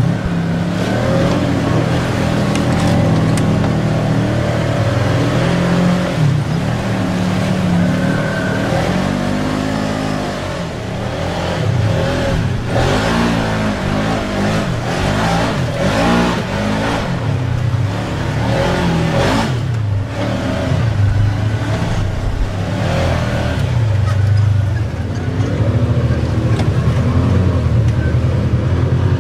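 Side-by-side UTV engines revving, their pitch rising and falling again and again as the machines work along the trail.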